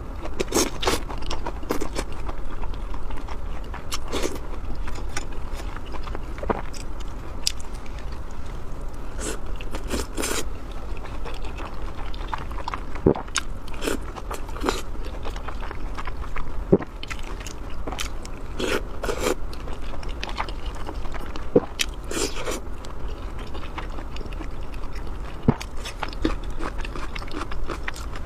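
Close-miked eating: a person biting and chewing food, with irregular wet mouth clicks and smacks and a few sharper crunchy bites, over a steady low hum.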